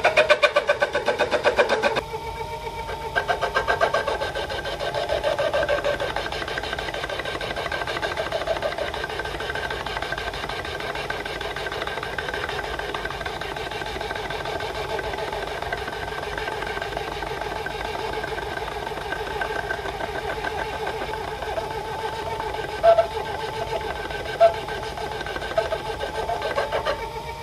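Small motor-driven DIY lathe turning a 15 mm steel bar with a carbide insert, taking a very light cut of about 0.1 mm: a steady running whine of motor and spindle, louder and pulsing for the first two seconds. Two sharp ticks near the end.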